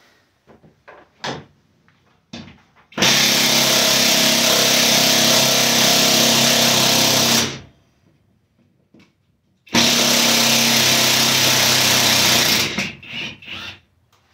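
Cordless drill running under load in two long steady runs, about four seconds and then about three seconds, driving a bolt into the wall. A few light knocks of handling come before the first run.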